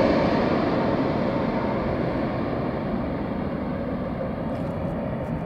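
Pegasus airliner's jet engines, a steady rushing roar that fades and grows duller as the plane lands and moves away down the runway.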